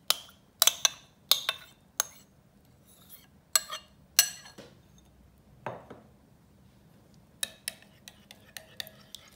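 A metal spoon clinking sharply against a ceramic bowl, about six times over the first four seconds, as yogurt is scraped out. Near the end come lighter, quicker taps as the spoon stirs in a glass bowl.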